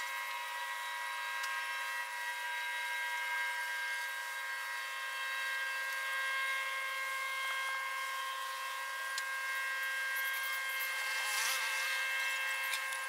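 A steady, high buzzing drone made of several evenly spaced tones, with a short patch of faint crackling about eleven seconds in.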